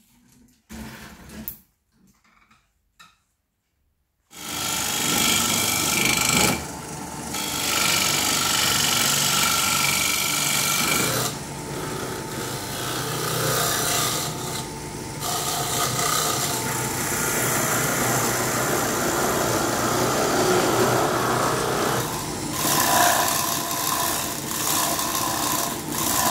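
Homemade wooden lathe running on its electric motor, spinning a wooden bowl while a hand-held turning tool cuts into it: a steady scraping, cutting noise over the motor, starting about four seconds in with a couple of brief lulls. Before that, only a few soft knocks.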